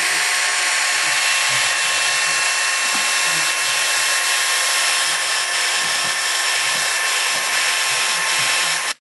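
Electric drill fitted with a mixer beater, running at a steady speed with a constant whine as it whisks eggs; it cuts off abruptly near the end.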